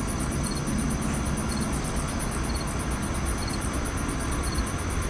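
Night insects chirping: a fast, even pulsing trill high up and a short triple chirp about once a second, over a low, steady engine rumble.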